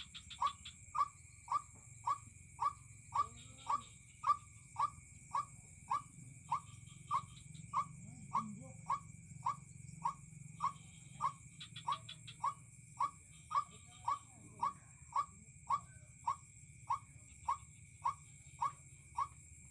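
White-breasted waterhen (ruak-ruak) call: a short note near 1 kHz repeated in an even, monotonous rhythm of about two a second. Steady insect drones run underneath.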